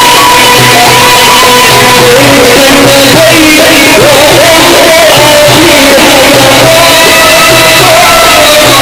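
A male Sufi munshid singing religious praise in an ornamented, wavering melody into a microphone. He is accompanied by an Arabic ensemble, whose regular low beat pulses about twice a second.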